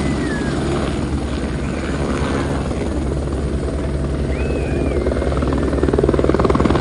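Helicopter rotor and engine running steadily, growing somewhat louder near the end, with a couple of faint high chirps.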